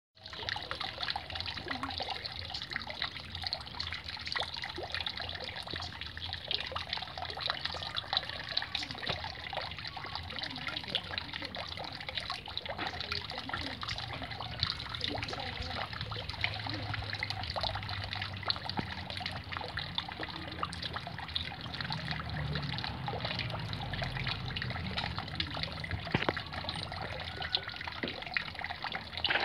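Small pond fountain jet splashing and trickling steadily back onto the surface of a garden pond, with many small droplet patters.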